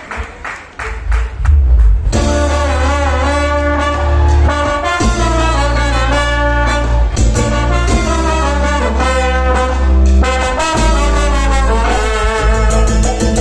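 Live Latin dance band: about two seconds of percussion hits, then the full band comes in, with trumpet and trombone playing the melody together over bass and percussion.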